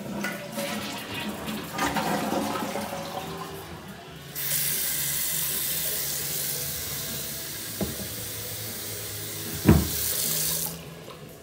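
Bathroom sink faucet running a steady stream into the basin, then shut off sharply near the end. A single sharp thump comes just before the water stops.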